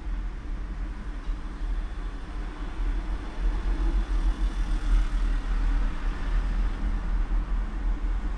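A tram running on its rails: a steady low rumble, with wheel-on-rail noise growing louder about halfway through.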